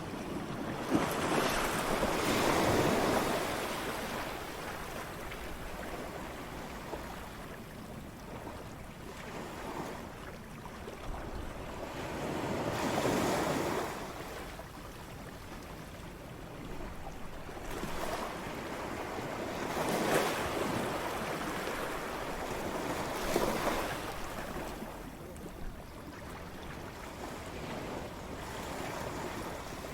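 Ocean waves breaking on a shore, several large waves surging and then washing back, with a steady wash of surf between them.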